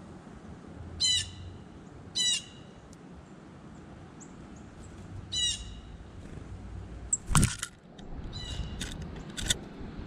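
A small songbird at a seed feeder gives three short, harsh, buzzy calls: two about a second apart, then another about three seconds later. About seven seconds in there is a loud flutter of wings close by, followed by a few sharp ticks.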